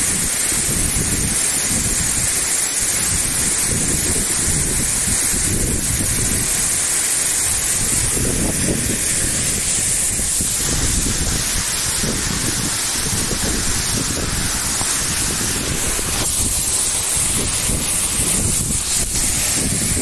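Waterfall in heavy flow, water pouring and crashing onto rock: a loud, steady rush with an uneven low rumble underneath.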